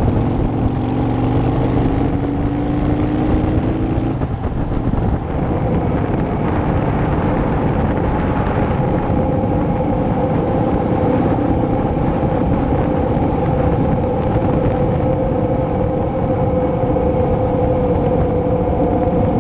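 Motorcycle engine running at road speed with wind rushing over the microphone. The engine note climbs for the first few seconds, drops about four seconds in, then holds steady.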